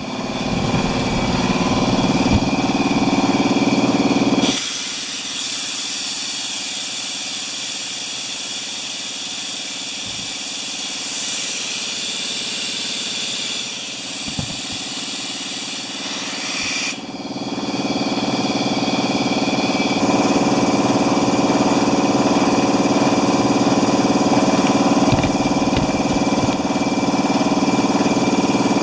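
Electric wheelbarrow air compressor running, its motor turning the belt-driven pump with a steady hum. For about twelve seconds in the middle the hum drops away and a loud hiss takes over, then the hum returns.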